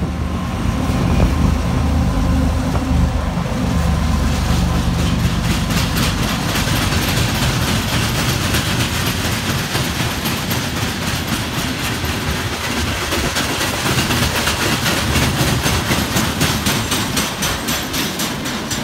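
2TE116UD twin-section diesel locomotive passing close with its engines running, then a freight train of gondolas and tank cars rolling by. Its wheels give a steady rhythmic clickety-clack over the rail joints, which takes over from the engine sound about five seconds in.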